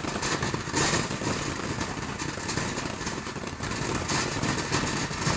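Small ground fountain firework spraying sparks with a steady hiss, surging louder briefly about a second in and again around four seconds.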